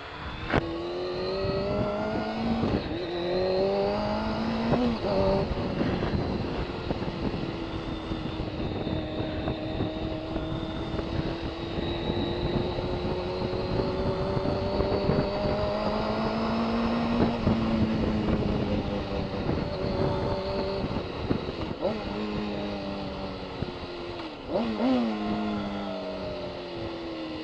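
Motorcycle engine pulling up through the gears: its pitch climbs and drops back at each shift, three times in the first five seconds. It then cruises more steadily, rising slowly, with a few more shifts later on. Wind rushes over the microphone throughout.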